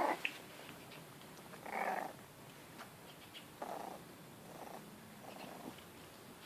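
Five-week-old Jack Russell–Yorkshire Terrier mix puppies making short, rough grunts, four of them spread a second or two apart over a faint background.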